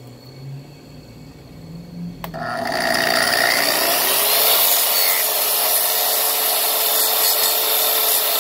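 Kreg plunge saw on its guide track switched on at its top speed setting, 6: a click about two seconds in, then the motor spins up with a rising whine that levels off, and the blade runs steadily as it is pushed along the track, trimming the track's splinter guard strip.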